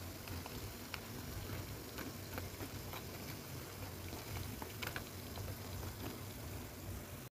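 Potato-and-tapioca cracker slices deep-frying in hot oil: a steady sizzle with scattered crackles and pops.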